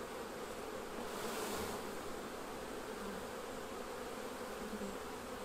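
Many honey bees flying around hive entrances, a steady buzzing hum.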